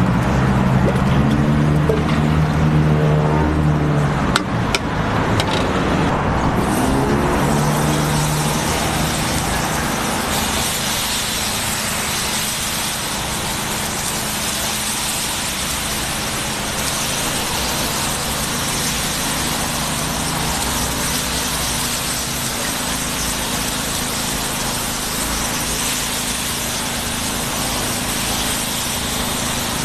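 Street noise: a motor vehicle's engine sounds for the first several seconds, its pitch rising and falling as it passes, then a steady wash of background noise.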